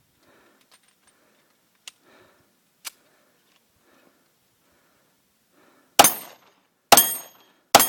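Two loud gunshots about a second apart near the end, after two sharp metallic clicks a few seconds earlier. Faint, hard breathing about once a second comes before the shots.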